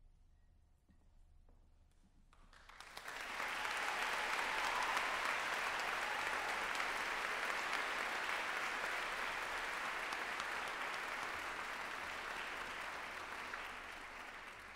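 Audience applause. It starts a couple of seconds in, swells within about a second, holds steady, and eases off a little near the end.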